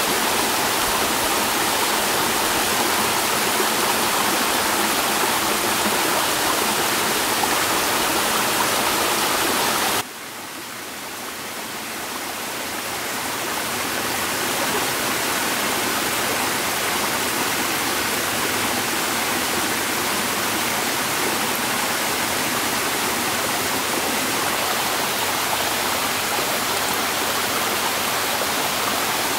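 Steady rush of running water. About ten seconds in it drops away suddenly and swells back up over a few seconds.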